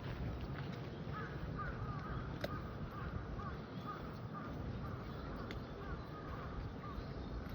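A bird calling in a quick series of short repeated notes, over steady outdoor background noise.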